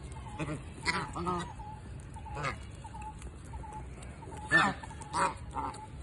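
A group of domestic ducks calling: a series of short, harsh, honking quacks, the loudest about four and a half seconds in and again just after, with soft short peeps between them. They are hungry ducks begging for more food.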